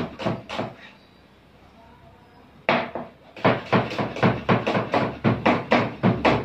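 Kitchen knife chopping onion on a cutting board: a few quick strokes, a pause of under two seconds, one sharp knock, then a steady run of about four chops a second.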